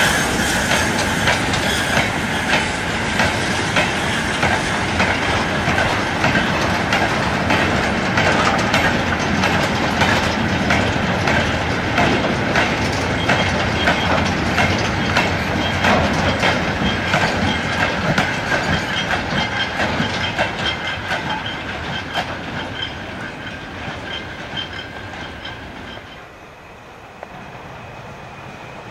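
A rake of four-wheeled steel mineral wagons rolling past, their wheels clicking steadily over the rail joints. The sound slowly fades as the train draws away, then drops off sharply a couple of seconds before the end.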